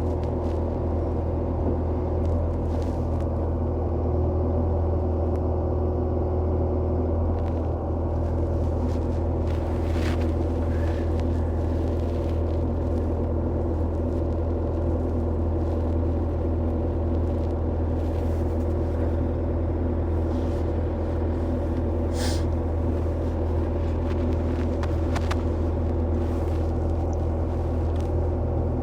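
Bobcat E55 excavator's diesel engine running steadily at constant speed, with a few sharp clanks and knocks, the loudest about two-thirds of the way through.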